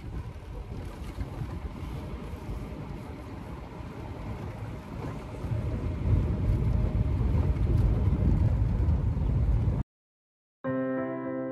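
Safari jeep driving along a forest track: low engine and road rumble with wind buffeting the microphone, louder about six seconds in. It cuts off suddenly near the end, and after a short silence soft background music with sustained notes begins.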